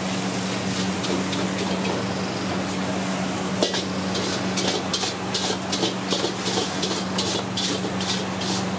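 Bamboo wok brush scrubbing a wet wok in quick strokes, about three a second, starting with a sharp knock about three and a half seconds in. A steady hum from the wok range runs underneath.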